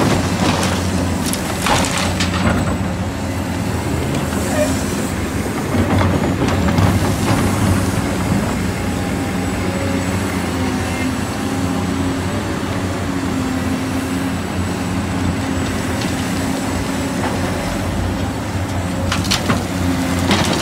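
Huina 1594 remote-control excavator's electric motors and gears whirring steadily, the pitch shifting from time to time as it works, with a few knocks and scrapes of the bucket in sand.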